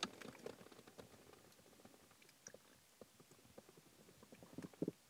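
Faint kissing: soft, wet lip smacks, with a slightly louder one near the end.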